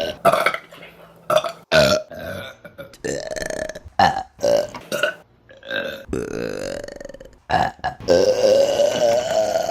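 Women burping, a quick string of separate burps from different people: several short ones in the first half, then longer drawn-out burps, the last and longest starting about two seconds from the end.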